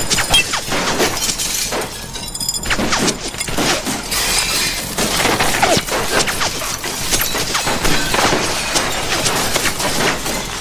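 Glass shattering, over and over, with shards crashing and scattering.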